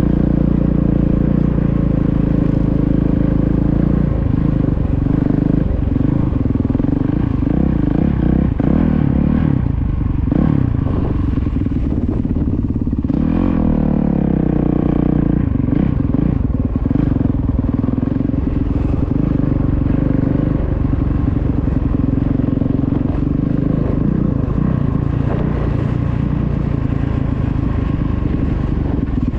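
Motorcycle engine running steadily at low revs, its pitch sagging and then climbing again about halfway through.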